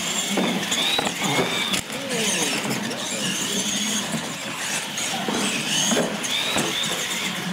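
Electric R/C monster trucks racing: a high-pitched motor and gear whine that rises and falls as they accelerate and let off, with a few sharp knocks as the trucks hit ramps and land.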